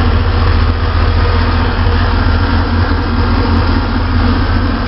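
454 big-block V8 in a Jeep CJ5 idling steadily, loud and deep, breathing through headers and Hooker mufflers.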